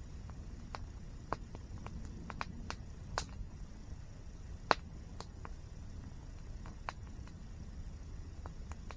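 Campfire crackling, with irregular sharp pops and snaps, the loudest about four and a half seconds in, over the steady low rush of a nearby waterfall.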